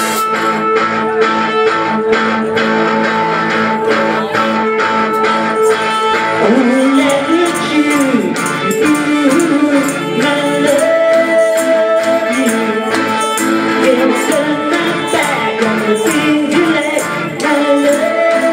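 Live rock band playing amplified on a small stage: a steady drum-kit beat under bass and electric guitars and keyboard, with a wavering melody line coming in about six and a half seconds in.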